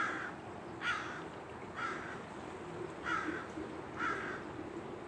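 A bird giving five short, harsh, caw-like calls about a second apart.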